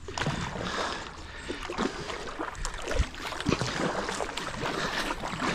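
Kayak paddle strokes in the water: irregular splashes and drips, with short knocks scattered throughout.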